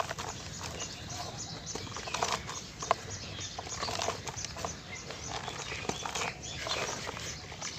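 Soft, wet cement being crushed and crumbling: a run of irregular soft crunches, crackles and small knocks over a steady low hum.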